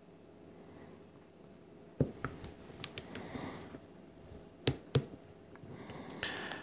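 Torque wrench and socket tightening a power valve into a Holley 4160 carburetor metering block, set to 45 inch-pounds: a knock about two seconds in, a quick run of small clicks around three seconds, and two sharper clicks near five seconds.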